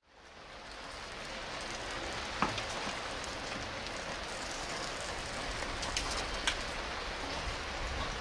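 A steady hiss with a few light clicks and knocks, as a roast chicken on a wire hook is handled and lifted out of a clay jar oven.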